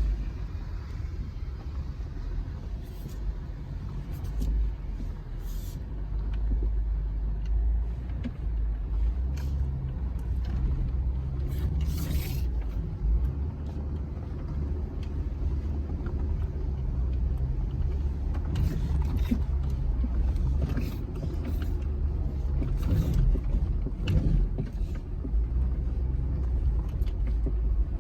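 Jeep Gladiator Rubicon's 3.6 Pentastar V6 and drivetrain running at low speed, a steady low rumble heard from inside the cab. Scattered short clicks and knocks come through, the loudest about 12 s in.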